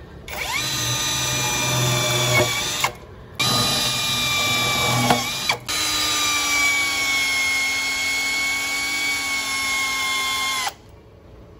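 Hukan HK533 21 V cordless drill driving screws in three runs, its motor whine sagging slightly in pitch under load. The first two runs end abruptly about three and five and a half seconds in, and the third runs steadily for about five seconds before stopping.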